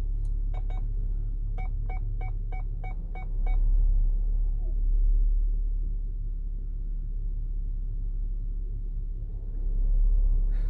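Ford Explorer's parking-aid chime beeping in a run of short tones, spaced out at first and then about five a second, which warns that the SUV is close to an obstacle as it parks itself. The beeps stop after about three seconds. The vehicle's low cabin rumble then swells twice as it moves.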